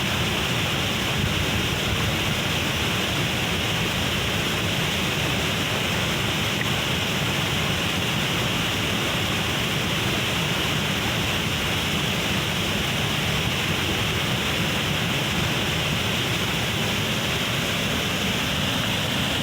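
Waterfall's rushing water: a steady, unbroken roar.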